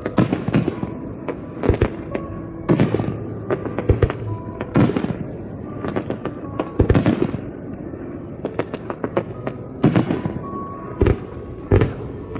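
Aerial fireworks bursting in quick succession, many sharp bangs, some in clusters, with crackling after several of them, over music playing underneath.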